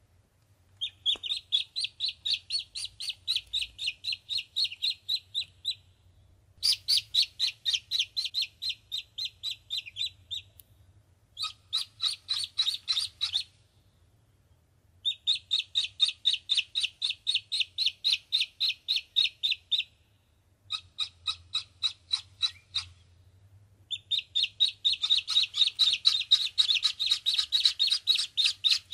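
Yellow ducklings peeping: quick high-pitched peeps, about four a second, in runs of a few seconds with short pauses between. In the last few seconds the peeping grows louder and denser, as if more than one duckling is calling at once.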